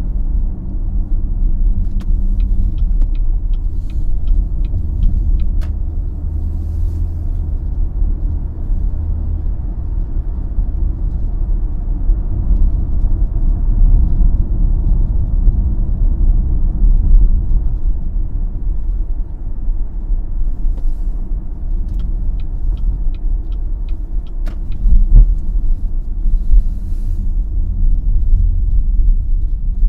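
Cadillac XT5 cruising on the expressway: a steady low road and tyre rumble. Two short runs of light, evenly spaced ticks come through, a few seconds in and again about three-quarters of the way through.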